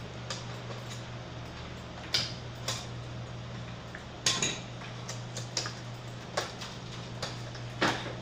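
Scattered sharp clicks and clinks of small hard plastic and metal parts being handled, as the Epson LQ-310 dot-matrix printer is taken apart, over a steady low hum. The loudest clicks come about four seconds in and near the end.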